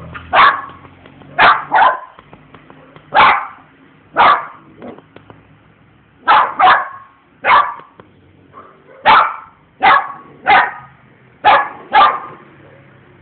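A dog barking at a lizard: about a dozen short, sharp barks at irregular intervals, several coming in quick pairs.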